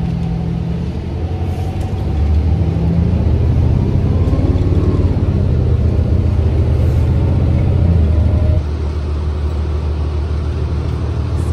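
Steady low vehicle rumble with an engine drone. It grows louder about two seconds in and drops back about eight and a half seconds in.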